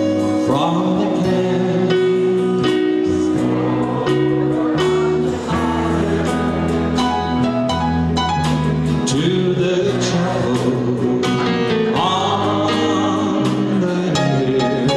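Live band music with a man singing over a drum kit keeping a steady beat and held bass notes underneath.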